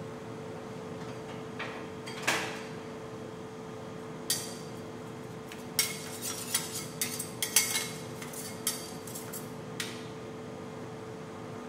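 Metal ice cream roll spatulas clinking and tapping against the steel cold plate: a couple of single clinks, then a quick run of taps about six to eight seconds in, and one last clink near the end. A steady hum runs underneath.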